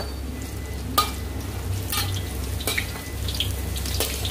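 Whole spices frying in oil in a pan, with a spatula knocking against the pan four times, about once a second, over a steady low hum.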